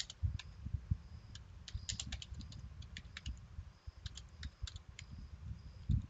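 Typing on a computer keyboard: irregular keystrokes at an uneven pace, with a louder thump just before the end.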